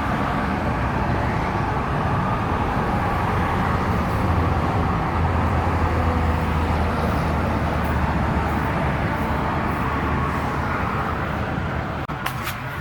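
Steady freeway traffic noise, with a low hum that swells through the middle and a few sharp clicks near the end.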